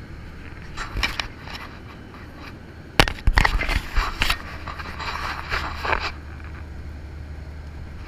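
Steady low drone of an airliner cabin, with scrapes and knocks of handling noise on the camera. The sharpest knock comes about three seconds in, followed by a cluster of scrapes.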